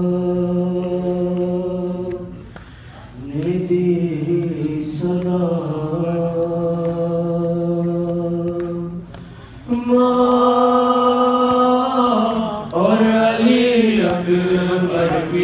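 A man's solo voice reciting a nawha, a Shia lament, into a microphone. He sings long, drawn-out held notes, breaks off briefly twice, and grows louder in the last third.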